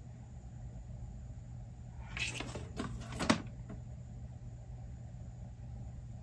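Apple Pencil tip scratching across the iPad's glass screen in a couple of short strokes about two seconds in, ending in a sharp tap, over a steady low hum.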